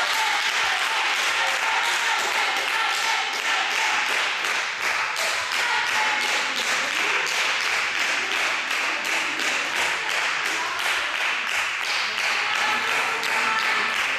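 Spectators clapping rapidly and steadily, with voices calling out over it.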